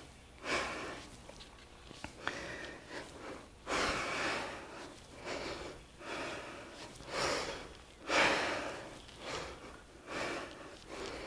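A woman breathing hard from exercise exertion: short, breathy exhalations repeating about every second or two.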